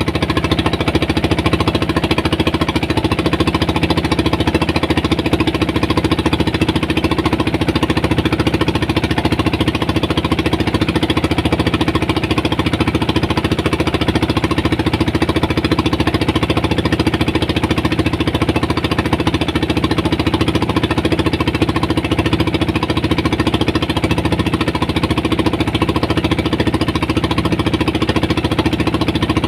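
Small fishing boat's engine running steadily under way, a fast, even pulsing drone.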